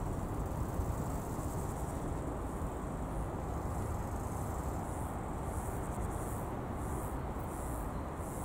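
Insects chirping high and thin in a pulsing rhythm, about two pulses a second and clearer in the second half, over a steady low rumble.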